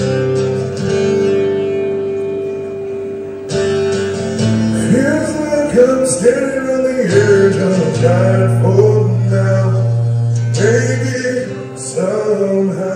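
A live song: acoustic guitar strumming chords, with a man's singing voice coming in over it about four and a half seconds in.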